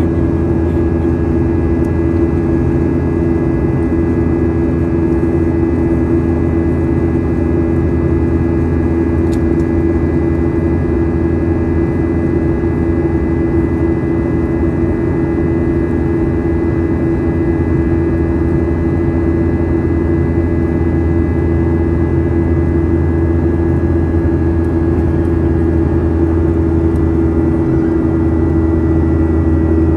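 Cabin sound of a Boeing 737-800 climbing after takeoff: the steady drone of its CFM56-7B turbofan engines, a low hum with a few thin whining tones above it and airflow noise beneath.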